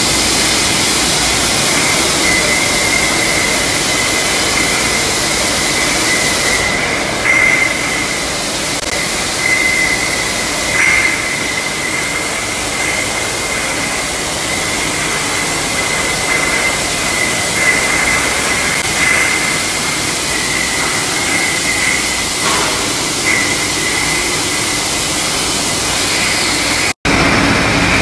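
Dairy plant production-line machinery running: a loud, steady din with a high whine that wavers slightly throughout, and a few brief clanks.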